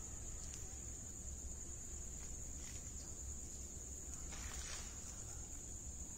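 Steady, high, unbroken chirring of night insects such as crickets, over a low steady hum, with a brief rustle about four and a half seconds in.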